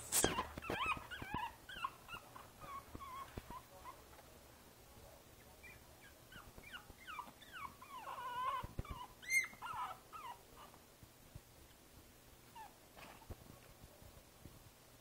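A Boston Terrier puppy whimpering and whining in a string of short, high-pitched cries that often slide down in pitch. The cries come in two bouts, one at the start and a longer one through the middle, with a few light knocks between them.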